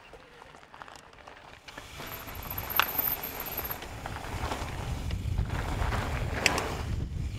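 Mountain bike riding through a line of dirt step-up jumps. A rushing ride noise builds after about two quiet seconds, with a sharp clack about three seconds in and another about six and a half seconds in.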